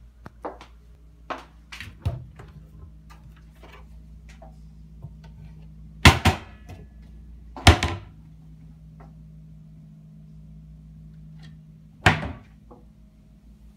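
Kitchen cabinet doors being opened and shut: a few light clicks and knocks at first, then three loud knocks about six, eight and twelve seconds in, over a steady low hum.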